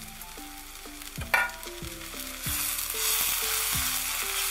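Shredded chicken and onions sizzling in a frying pan while being stirred with a silicone spatula; the sizzle and stirring noise grow louder about halfway through. A single sharp knock about a second in, with soft background music underneath.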